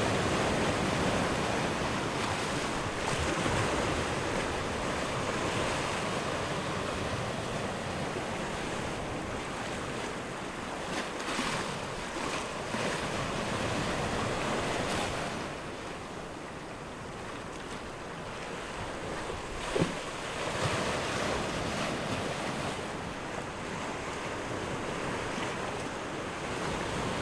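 Steady rushing noise of wind and waves, with one brief sharp sound about two-thirds of the way through.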